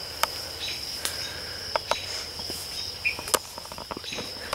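Insects trilling steadily in one continuous high tone, with a few sharp clicks scattered through it and a brief bird chirp about three seconds in.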